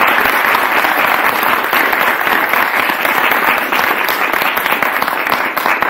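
A large seated audience applauding: many hands clapping steadily together.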